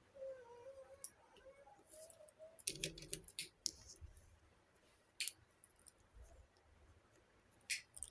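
Small plastic toy kitchen pieces being handled, giving scattered light clicks and taps, densest in a quick run about three seconds in, with single clicks later. A faint wavering tone is heard in the first couple of seconds.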